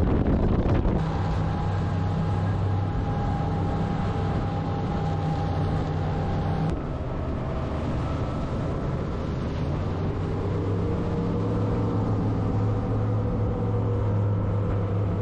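Hysucat boat's engines running at high speed: a steady drone over rushing wind and water. The engine note shifts about seven seconds in and creeps slightly higher near the end.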